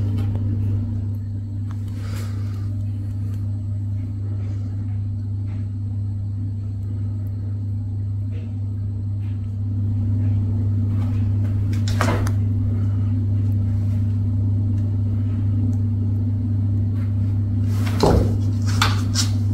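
A steady low hum runs throughout, with occasional soft scuffs and taps as two cats wrestle on a felt play mat, and a sharper cluster of knocks near the end.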